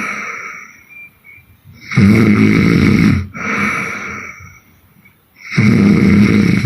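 A woman snoring hard: two loud, buzzing snores, each over a second long, come about two seconds in and near the end. Each is followed by a softer, breathier breath, in a slow steady rhythm of sleep breathing.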